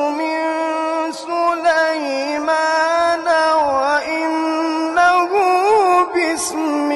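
A man reciting the Quran in melodic maqam style, with long held notes that waver in quick ornamental turns and short breaths between phrases.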